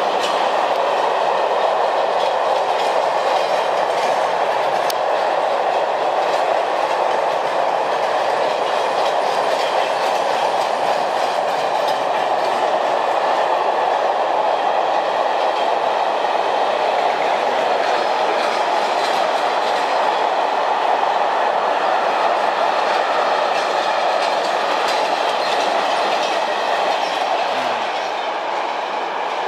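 Freight train of container flat wagons and covered goods wagons rolling past at speed: a steady rolling rumble with the wheels clicking over rail joints. It eases off a little near the end as the last wagons go by.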